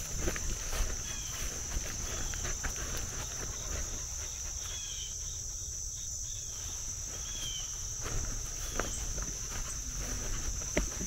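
Steady insect chorus, a continuous high-pitched buzz, with footsteps rustling through grass and a few short, high chirps.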